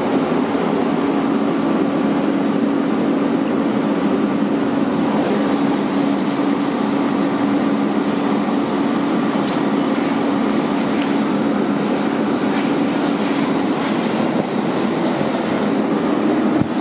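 A fire hose sprays water onto burning debris, a loud steady hiss over a steady mechanical drone with a low hum running through it. A few sharp crackles stand out about a third and halfway through.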